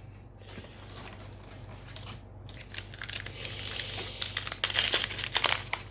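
Trading-card booster-pack foil wrapper crinkling as it is handled and opened, starting about two and a half seconds in and growing louder, after a few soft rustles of cards.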